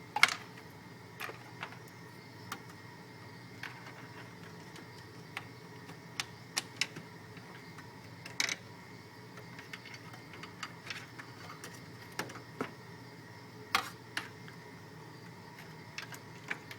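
Scattered, irregular small clicks and taps from hand work on the metal server chassis and motherboard parts, over a steady low hum.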